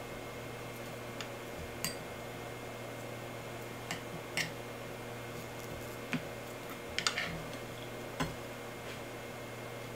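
A spoon tapping and scraping against a ceramic bowl while cooked ground beef is spooned into a mound: several short, irregular clicks, a small cluster of them about seven seconds in, over a steady low hum.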